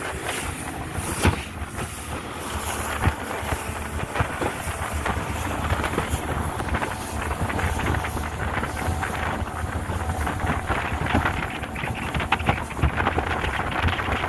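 Open river boat under way: its engine running steadily, with wind buffeting the microphone and frequent short knocks throughout.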